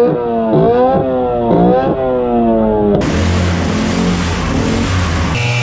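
Small petrol boat engine revving up and down in quick blips, about once a second. About three seconds in it changes to a steady low running note under a loud rushing noise.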